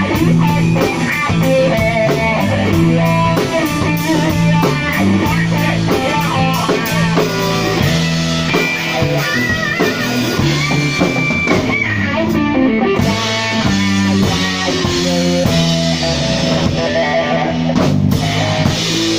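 Telecaster-style electric guitar played lead through an amplifier over a drum kit in a live rock jam. The guitar plays runs of notes, then long held notes with vibrato about halfway through, over a steady cymbal beat.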